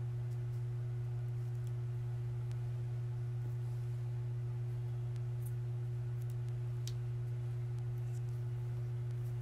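A steady low electrical hum with a fainter, higher steady tone above it, unchanging throughout, with a few faint ticks.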